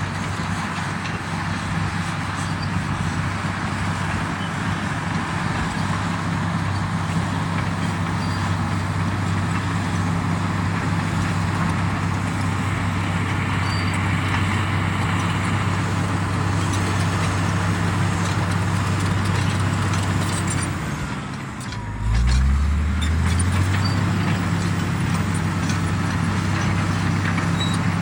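Komatsu D85EX bulldozer's diesel engine running steadily under work, with a constant low engine note. A little after twenty seconds it drops briefly, then comes back louder with a short low rising note before settling again.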